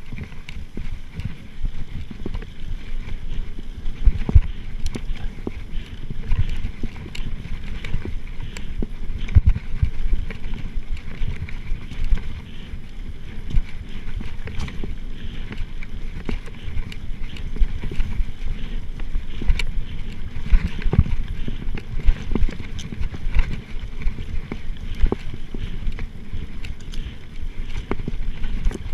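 Mountain bike ridden fast over a bumpy dirt forest track, heard from a chest-mounted GoPro: a steady low wind rumble on the microphone, with frequent knocks and rattles as the bike goes over bumps.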